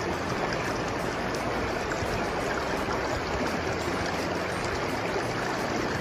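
River water rushing and babbling steadily over a shallow rocky shoal, heard close from just above the water's surface.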